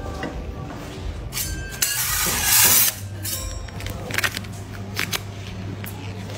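Sticky crackling and clicks as a slab of warm hard-candy mass is handled and folded on a metal table, over a steady low hum. About two seconds in comes a brief, loud hissing rush, the loudest sound here.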